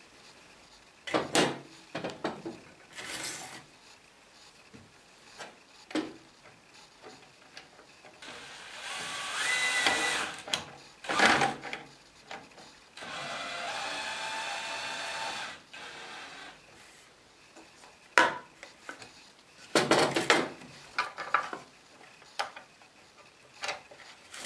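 Cordless drill working at a sanding block's metal swivel bracket: its motor speeds up with a rising whine about eight seconds in, then runs at a steady pitch for about three seconds. Sharp knocks and clatter of metal parts and tools being handled come before and after.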